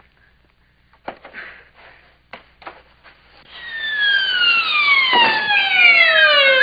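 A few light knocks, then a loud descending whistle glide about three and a half seconds in, falling steadily in pitch for about three seconds: a comic slide-whistle effect for a slide down a staircase banister.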